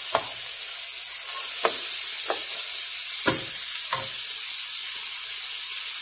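Mutton pieces and sliced onions sizzling in hot oil in a pot while being lightly browned (bhuna) together. A spoon stirring them knocks and scrapes against the pan about five times in the first four seconds, loudest a little past three seconds.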